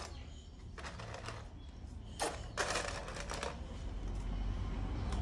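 Plastic Lego pieces clicking and rattling against a metal tin as they are handled, in a few short clusters of clatter. A low rumble builds near the end.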